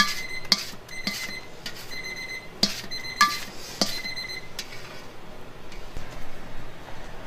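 A spatula and gloved hand knocking and scraping against a large stainless steel mixing bowl while batter is poured out of it, each knock making the bowl ring briefly. There are about eight knocks in the first four and a half seconds.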